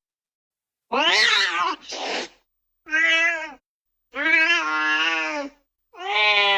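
Domestic cat meowing in a series of separate calls with short silent gaps, the first one wavering. A longer, drawn-out meow starts near the end.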